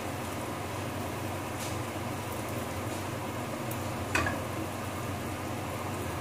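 Rice frying in a pan on a gas stove with a steady hiss and low hum. About four seconds in, a metal spatula strikes the pan once with a short, ringing clink.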